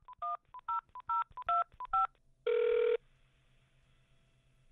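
Touch-tone telephone keypad dialing: about five quick two-tone beeps over the first two seconds, then one longer half-second tone.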